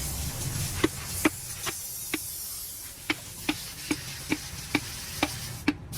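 A series of light, sharp knocks at an even beat of about two and a half a second, pausing briefly partway through, over a steady hiss.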